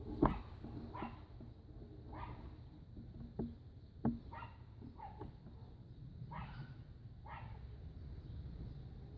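Short animal calls repeated about once a second, with sharp knocks mixed in; the loudest knock comes just after the start and another about four seconds in.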